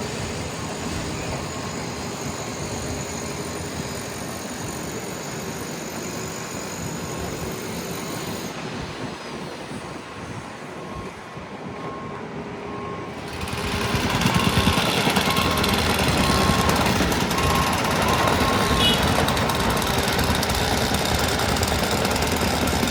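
Construction machinery running steadily. About two-thirds of the way in it grows louder, with a dense, rapid pounding of the kind a gas-powered tamper or jackhammer makes.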